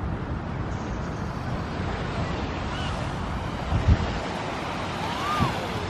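Wind buffeting the microphone over small waves lapping on a sandy shore, with a single low thump about four seconds in.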